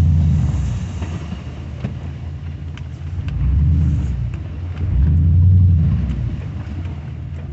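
2005 2500HD pickup plow truck's engine running under load while reversing, heard from inside the cab, rising in two swells of throttle about halfway through.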